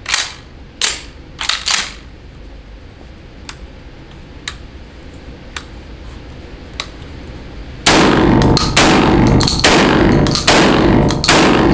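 MAC M2 inertia-driven semi-automatic 12-gauge shotgun firing five quick shots of light 1-ounce low-brass loads, under a second apart, each ringing in an indoor range. The gun cycles every shot without a stoppage. Before the shots come a few sharp clicks from handling the gun.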